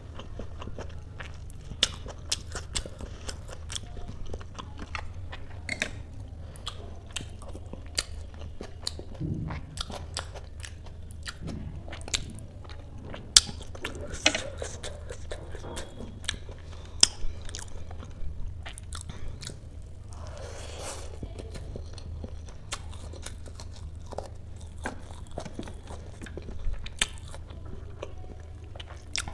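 Close-miked mouth sounds of chewing soft, spongy dhokla: irregular wet clicks and lip smacks, with a longer breathy sound about twenty seconds in, over a steady low hum.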